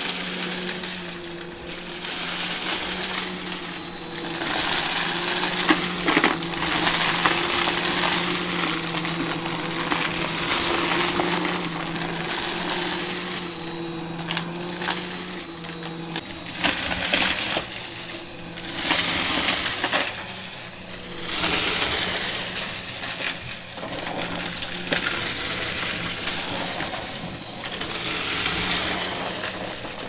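Vacuum cleaner running with a steady motor hum while sucking up crunchy debris: crackling and rattling over hiss that swells and dips every few seconds. The hum changes pitch slightly about halfway through.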